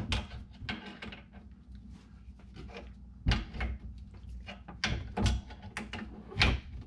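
Pliers and hands clicking and knocking inside a wooden vanity cabinet while the faucet's water supply line is tightened, with a few sharp knocks scattered through.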